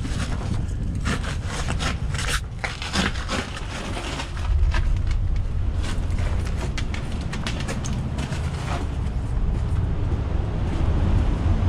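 Footsteps scraping and crunching over loose rock and gravel in a quick, irregular run that thins out after about nine seconds. Underneath is a low rumble of wind on the microphone, which grows louder about halfway through.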